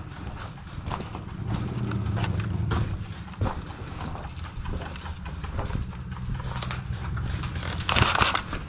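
Scattered sharp clicks and knocks over a low steady rumble, with a brief loud rush of noise near the end.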